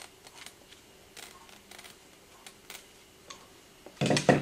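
Faint scattered clicks and small snips as a knife blade trims the loose thread ends of an arrow's fletching wrap. About four seconds in comes a loud knock, the knife being set down on a wooden block.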